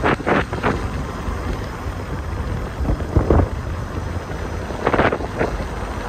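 Wind buffeting the microphone over a steady low rumble, with a few brief louder gusts: three at the very start, one about three seconds in and one about five seconds in.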